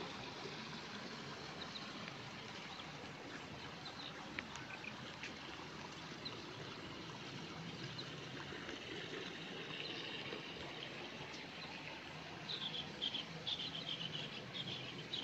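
Faint, steady outdoor background hiss. About three seconds before the end, a run of quick, high chirps starts and repeats.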